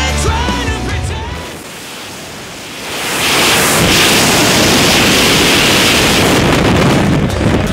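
Rock music with singing ends in the first second or so. About three seconds in, a loud, steady rush of wind over a skydiver's camera microphone sets in, and it drops away shortly before the end.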